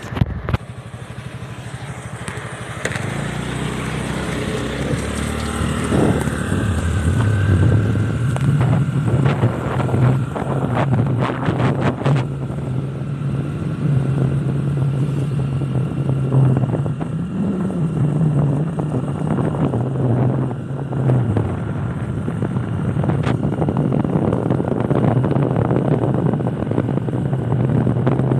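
Motorcycle engine running on the move: it picks up a few seconds in and holds a steady note, climbing in pitch briefly partway through before easing back, with wind and road noise underneath.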